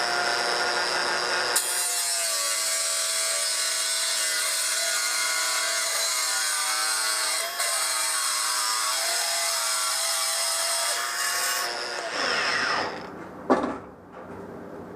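A small electric cutting tool runs at a steady high pitch while cutting out a folding knife's back-spring piece, its pitch wavering and dipping under load. Near the end it is switched off and spins down with a falling whine, followed by a sharp click.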